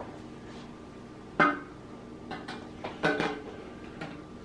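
Pop-up drain assembly knocking against an upturned porcelain sink top: two main ringing clinks about a second and a half apart, with a few lighter taps around them.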